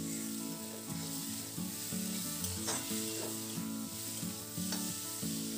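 Potato chunks in a thick onion-tomato masala sizzling in hot oil in a metal kadai while being stirred with a flat spatula, with a few spatula scrapes along the pan.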